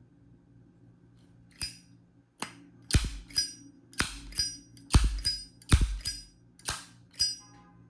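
Brass Zippo lighter being handled new: its hinged lid is flicked open and snapped shut over and over, about a dozen sharp metallic clicks, some with a short high ring.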